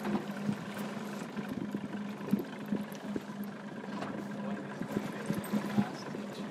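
Motor of an aluminium boat running steadily with an even hum, with water noise and scattered short knocks.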